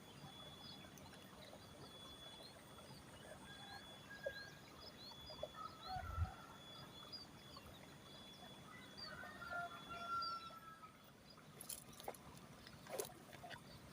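Faint birds chirping over a steady high thin tone, with a few lower calls. A low thump comes about six seconds in, and two sharp clicks come near the end.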